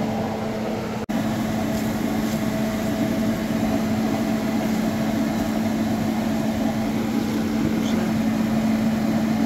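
A steady mechanical hum with one constant tone, like a running fan or appliance motor, under light scraping of a silicone spatula stirring ground meat and flour in a stainless steel pan. The sound cuts out for an instant about a second in.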